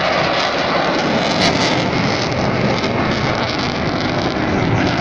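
Loud, steady jet noise from a Eurofighter Typhoon's twin turbofan engines as it flies past.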